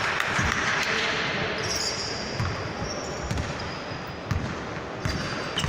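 Basketball bouncing on an indoor court, dull thuds at an uneven pace, with a few high squeaks partway through.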